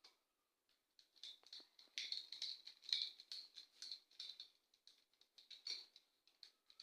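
Small irregular clicks and scrapes of a screwdriver and copper wires being worked into the terminals of a two-gang light switch.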